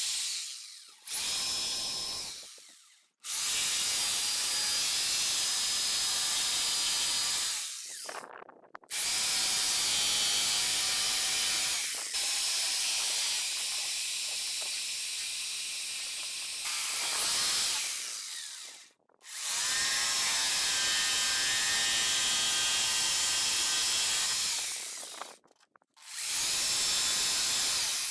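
A high-speed power tool cutting into a fiberglass dash, run in bursts of several seconds that stop and restart about four times, its pitch rising each time it spins up.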